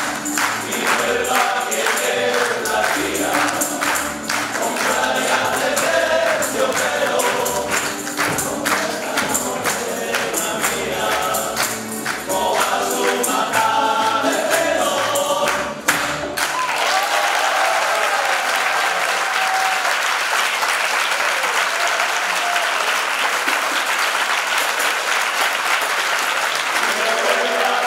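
A tuna's male choir singing over strummed bandurrias and guitars. The song cuts off sharply a little past halfway, and the audience breaks into steady applause. Singing starts up again at the very end.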